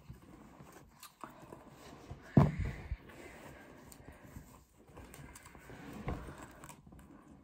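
Fabric rustling as baby clothes with paper tags are unfolded, handled and laid on a bed, with small clicks and a dull thump about two and a half seconds in.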